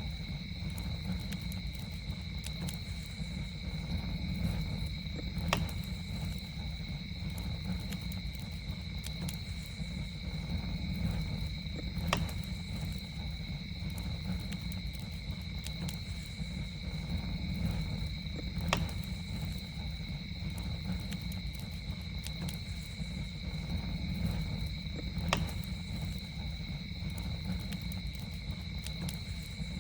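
Campfire burning with a steady low rumble and sharp crackles and pops, a few louder pops about every six or seven seconds. Over it runs a steady, high, two-pitched drone of night insects.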